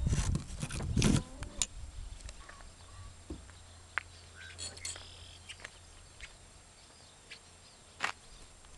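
Loud rustling and knocking right against the microphone for about the first second, then a quieter stretch of a low rumble, scattered small clicks and a few faint bird chirps.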